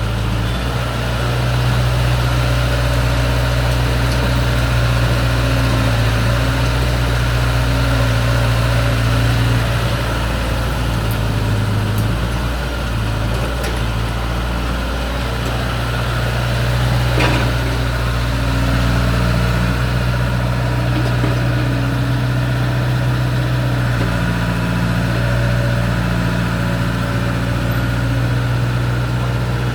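Caterpillar E70B excavator's diesel engine running steadily as the machine works. The engine note dips briefly and recovers a few times, and there is one sharp knock about seventeen seconds in.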